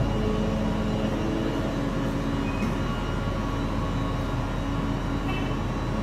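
Engine of the rigging machine carrying a heavy steel furnace, running with a steady low drone.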